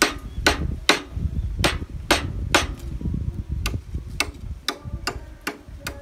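A machete blade chopping into a squared timber log, about a dozen sharp strikes at roughly two a second, cutting out nails embedded in the wood.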